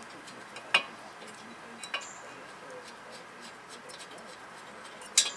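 A few sharp metallic clicks and knocks as the front disc brake caliper and bracket are handled and worked off the hub. The sharpest comes about a second in, with a quick cluster of clicks near the end.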